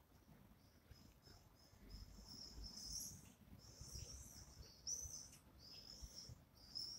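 Faint, high-pitched chirping of small birds in short, irregular phrases over a low background rumble.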